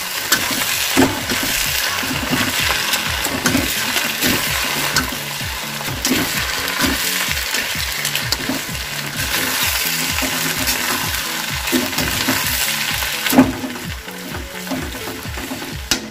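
Hakka noodles and vegetables sizzling over a high flame in a metal wok as they are tossed and stir-fried, with a steady hiss and repeated clicks and scrapes of the spoon against the pan. A sharper knock comes near the end.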